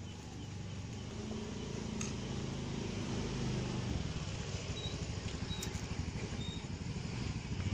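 A motorcycle engine running close by, growing gradually louder.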